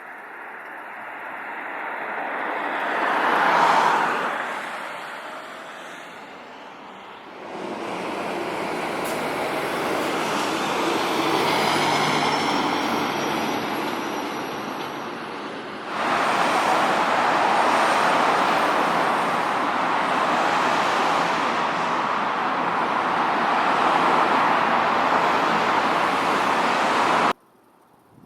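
Road traffic noise, with one vehicle passing by about four seconds in. The sound changes abruptly twice, at about seven and sixteen seconds, and cuts off suddenly about a second before the end.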